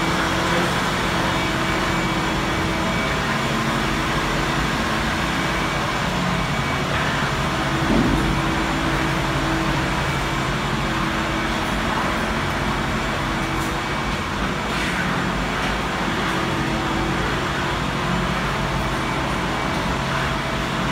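Ventilation machinery running: a steady rushing drone with a constant low hum underneath, and a brief louder bump about eight seconds in.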